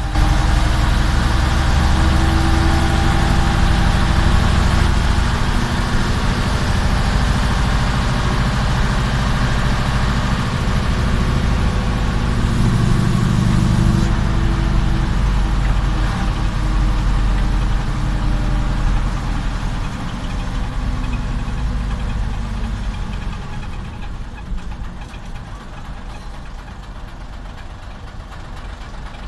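Jelcz 043 bus's diesel engine running under way, heard from inside the cab with a rattling, knocking character. Its note changes about halfway through, then drops and quietens over the last ten seconds as the bus eases off toward the traffic lights.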